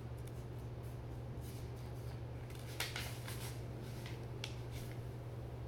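Room tone with a steady low hum, and a few faint clicks and rustles, the loudest about three seconds in.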